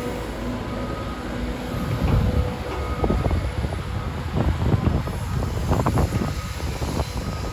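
Caterpillar 325 hydraulic excavator at work digging: a steady machine rumble, with irregular clanks and knocks starting about two seconds in.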